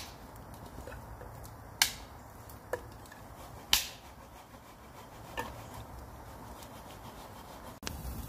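Wood campfire crackling, with a few sharp pops a second or two apart.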